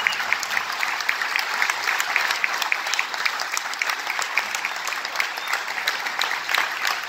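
A large crowd applauding: many people clapping in a dense, steady patter.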